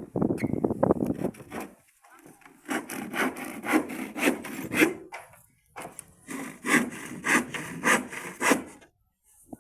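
Hand saw cutting through wood in quick back-and-forth strokes, about two to three a second, with two short pauses.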